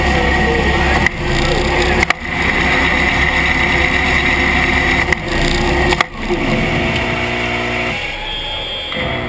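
Steady whir of a competition robot's electric motors, picked up close by the camera mounted on the robot, with four sharp knocks at about one, two, five and six seconds in. The pitch of the hum shifts near the end.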